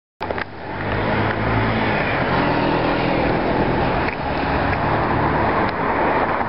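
Street traffic noise with a steady low engine hum that fades near the end. The sound cuts in abruptly just after the start.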